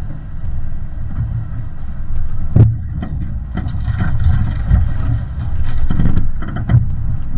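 A vehicle driving over a rough off-road trail: a steady low rumble with irregular knocks and rattles from jolts. The sharpest knocks come about two and a half seconds in and again near six seconds.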